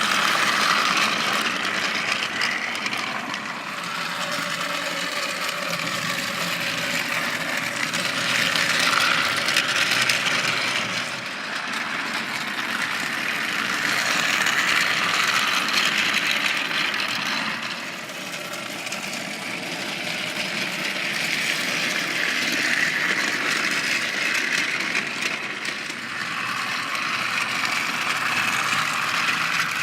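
Battery-powered Trackmaster toy train engines running on plastic track: a steady motor whir with wheel rattle that swells and fades every several seconds as the trains pass close by.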